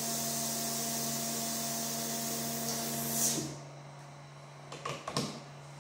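Weller WXHAP 200 hot-air pencil blowing: a steady hiss of air over the hum of its pump, which swells briefly and then stops suddenly a little over three seconds in. A few light knocks follow near the end.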